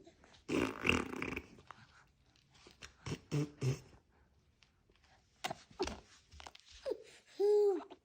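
A four-month-old baby blowing raspberries: a buzzing, spluttering burst of lip noise, then a few short sputters, and a short coo near the end.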